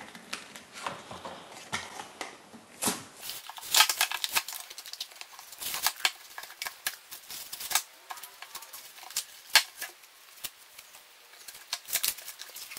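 A toy card reader's cardboard and clear plastic blister packaging being torn open and crinkled by hand: an irregular run of crackles, rips and sharp plastic clicks, a few louder snaps among them.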